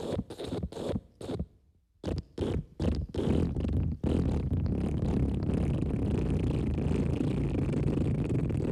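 Wet fart sounds: several short sputtering spurts with a brief pause, then from about three seconds in one long, continuous low fart that flutters rapidly.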